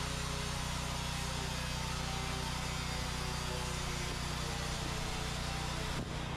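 A motor running steadily, an even mechanical drone with a noisy hiss over it; the sound changes abruptly about six seconds in.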